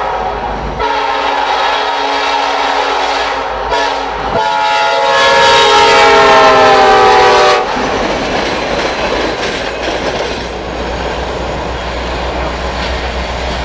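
Diesel locomotive's air horn blowing three long blasts as the train approaches, the third the loudest and falling in pitch as the locomotive passes. The horn then stops and the train's rumble and wheels on rail carry on as the cars roll by.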